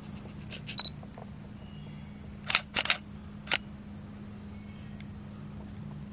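Camera shutter clicking four times in quick succession, loud and sharp, after a few faint clicks near the start; a steady low hum runs underneath.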